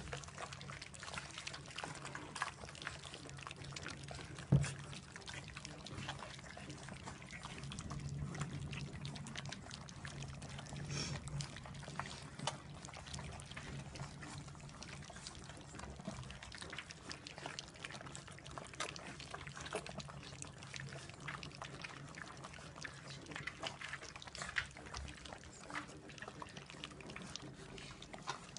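Several puppies lapping and chewing soft food from a shared metal bowl: a steady run of small, wet, irregular clicks and slurps, with one louder knock about four and a half seconds in.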